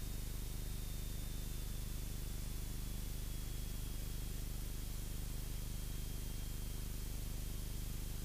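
The Cessna 172's engine and propeller droning steadily in flight, heard as a low hum under a steady hiss, with a faint high whine that drifts slightly lower in pitch.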